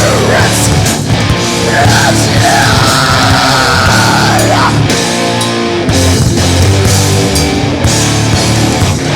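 Heavy metal band playing live: distorted guitars, bass and drums. A long, wavering high note is held from about two seconds in until nearly five.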